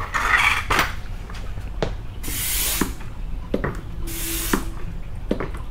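A hand-pump fluid extractor being pumped three times, each stroke a half-second hiss of air, with clicks of the pump handle in between. It is drawing the old brake fluid out of the clutch slave cylinder's bleeder.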